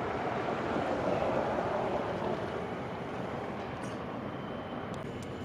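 Vehicle noise with a swell that peaks between about one and two seconds in and then fades, like a vehicle going past.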